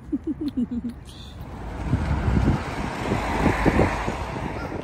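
Road traffic going by close to the microphone: a car's tyre and engine noise swells about a second and a half in, peaks, then fades as it passes, with wind rumbling on the microphone.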